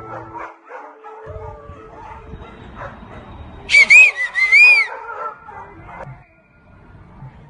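Dog whining: a burst of four high, rising-and-falling whines about halfway through, over quieter low background noise.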